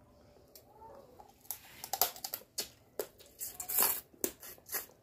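Close-up eating sounds: wet lip smacks and chewing clicks, with a short slurp of pasta noodles being sucked in off a fork near the end.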